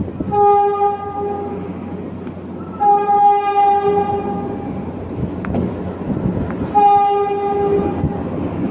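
Horn of a Philippine National Railways diesel locomotive sounding three blasts, each one steady tone: the first two about two seconds long, the last about one second. The rumble of the approaching train runs underneath.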